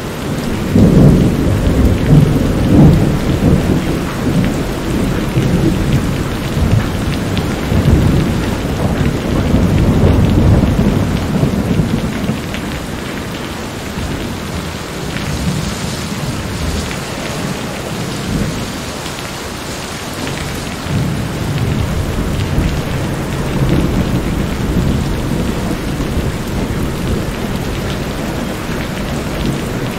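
A thunderstorm: steady heavy rain with thunder rolling underneath, the thunder loudest in the first dozen seconds and swelling again later on.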